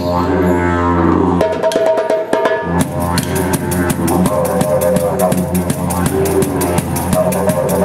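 Didgeridoo playing a steady low drone with shifting, gliding overtones. The drone breaks off for about a second early on and then resumes. From about three seconds in, a quick, regular hand-drummed beat on a darbouka plays along.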